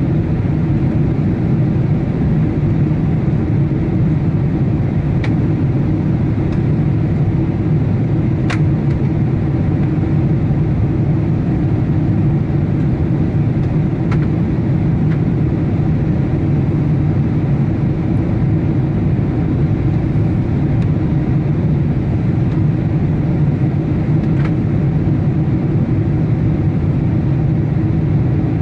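Steady cabin noise of a Boeing 747-8 descending on approach: a deep, even rumble of its GEnx engines and the airflow over the airframe, heard from inside the cabin by the wing. A few faint clicks sound through it.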